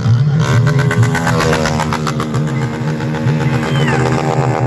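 A vehicle engine revving at high revs, its pitch rising and falling, over a deep pulsing low rumble.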